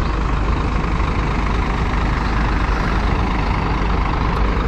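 Scania coach's diesel engine idling with a steady low rumble.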